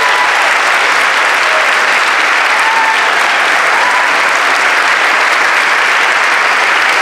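Concert audience applauding steadily after a song, with a few short shouts of cheering heard over the clapping in the first few seconds.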